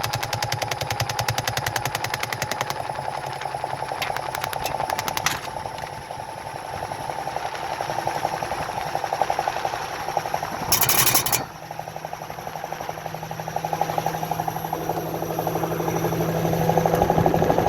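Washing machine on its spin cycle: a steady hum with rapid, even knocking from the spinning drum that fades and comes back, and a brief loud rush of noise about eleven seconds in.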